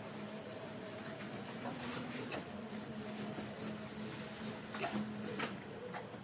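Faint scratching and rubbing of writing, with a few light clicks, over a steady low hum.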